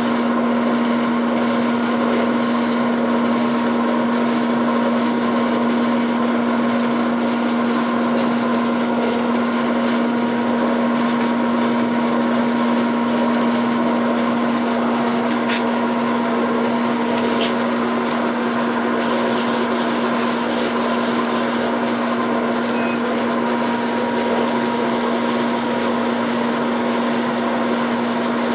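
Wood lathe running with a steady hum while a spinning walnut handle is sanded, a continuous rubbing hiss. A quick run of light ticks comes about two-thirds of the way through.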